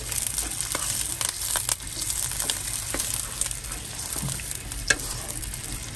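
Sliced onions, pandan and curry leaves sizzling in hot oil in a wok while being sautéed to crisp, with scattered crackling pops and a wooden spatula stirring through them; one sharper tick about five seconds in.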